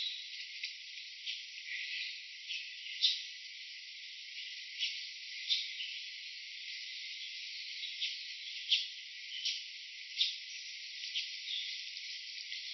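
Steady high insect chorus like crickets or cicadas, with about a dozen short sharp chirps scattered through it. The sound is thin, with only the high band present.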